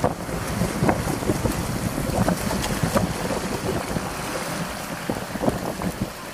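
Wind buffeting the microphone, with irregular splashes and sloshing steps of feet wading through shallow seawater.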